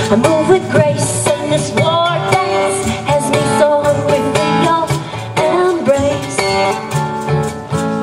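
Live acoustic folk music: a woman singing while strumming and picking an acoustic guitar, with a hand shaker keeping time.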